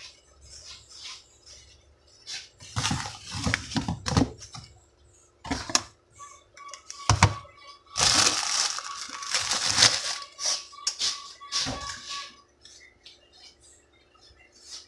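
Kitchen handling sounds: dishes and utensils knocked and set down on a counter in scattered clicks and clatters, with a burst of hissing lasting about two seconds, about eight seconds in.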